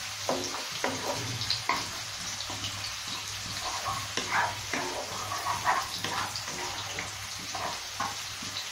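Sliced onions sizzling in hot oil and butter in a nonstick wok, with a wooden spatula scraping and tapping against the pan as they are stirred.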